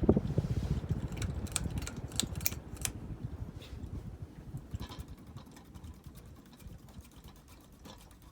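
Hampton Bay Grayton ceiling fan with worn-out bearings rattling and clicking fast, after a thump at the start. The rattle fades steadily, as a fan winding down would.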